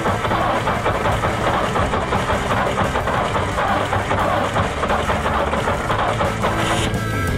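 Engine of a 1958 Ford panel truck turning over on the starter with a fast, steady chugging, stopping near the end.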